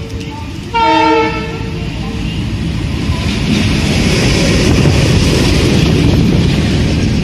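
WDG-3A ALCO diesel locomotive sounds a short horn blast about a second in. It then passes close by, its 16-cylinder ALCO 251 engine running and its wheels rolling on the rails, the noise growing louder from about three seconds in and staying loud.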